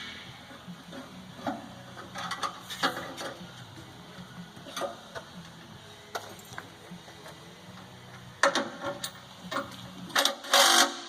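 Irregular metal clicks and knocks of hand tools working the roller mill's slide bolts, with a louder clatter near the end.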